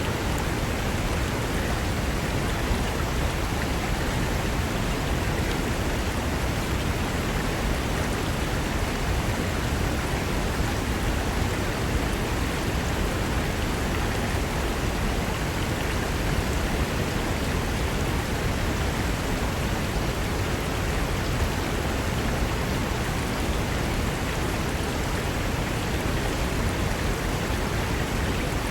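Fast mountain river rushing over rocks: a steady, loud, unbroken rush of water.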